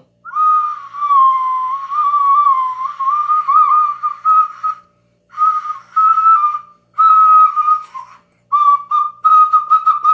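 Small ocarina blown by a player who doesn't know how to play it. A whistle-like tone wavers around nearly one pitch, first as a long note, then as shorter phrases with gaps, and finally as a run of short toots near the end.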